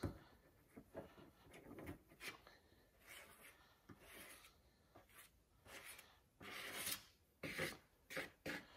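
Faint scraping and rubbing strokes of polyester filler being pushed and spread into pinholes on a truck body panel, working it into the holes. The strokes are sparse at first and come closer together and a little louder near the end.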